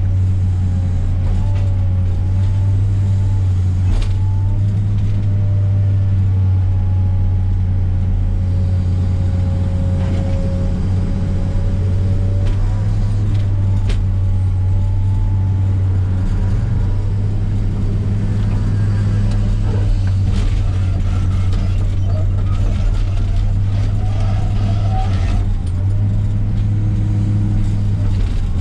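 Komatsu PC300 excavator's diesel engine running steadily under work, a constant low drone, with a few faint wavering whines and scattered knocks as it stacks brush.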